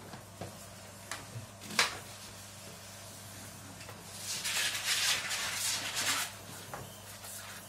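Plastic parts being handled: a few sharp clicks and knocks, then about two seconds of hissing rustle, over a steady low hum.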